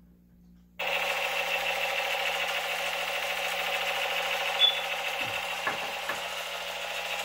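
Battery-powered light-up toy gun switched on about a second in, giving a steady buzzing electronic sound effect.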